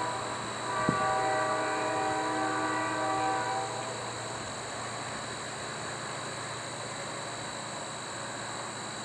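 Freight locomotive air horn sounding one long chord of several notes, starting with a sharp click about a second in and stopping at about 3.5 seconds. After that comes a steady hiss.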